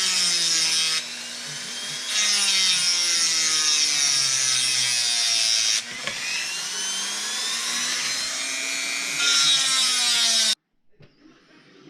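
Small high-speed power tool cutting a crosshatch slot into a seized metal screw head. Its motor whine dips and rises in pitch as it takes load, with harsh grinding during three loud passes, and it cuts off about ten and a half seconds in.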